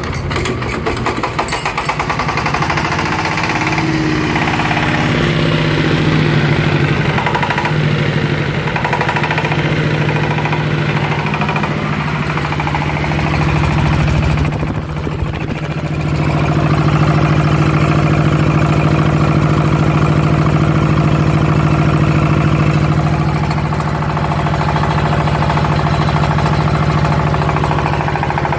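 Yamakoyo ZS1100 16 hp single-cylinder diesel engine, just started with the hand crank, running steadily. There is a brief dip about halfway, after which it runs a little louder.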